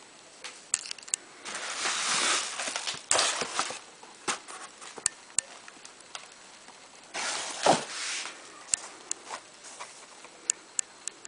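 Rustling and scraping of a doll's dress and its cardboard box as they are handled, with scattered light clicks and taps and one louder bump about two thirds of the way through.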